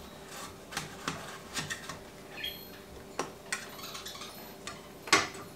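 Thin spatula scraping and clicking against the inside walls of metal loaf pans, loosening the edges of baked loaves that have stuck to the pan. Short, irregular scrapes and ticks, with one louder metal clink about five seconds in.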